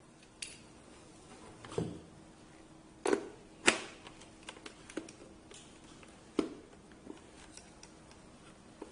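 Hard plastic parts of a dental LED lamp clicking and knocking as they are handled and fitted together: irregular sharp clicks, the loudest a little past three seconds in and again after six seconds.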